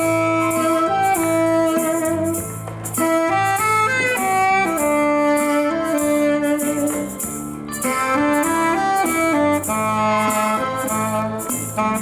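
Tenor saxophone playing a slow melody of held and sliding notes over an accompaniment with a steady drum beat and bass line.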